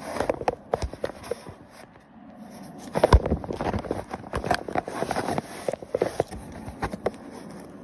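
Irregular taps and knocks, busiest in the middle, with a heavier thump about three seconds in.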